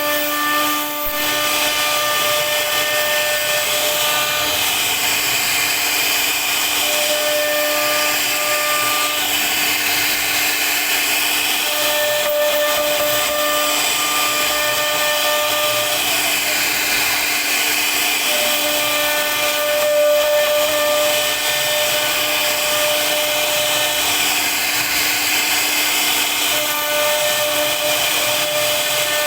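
CNC router spindle running while it carves wood, a steady cutting noise. Whining tones come and go every few seconds as the machine moves.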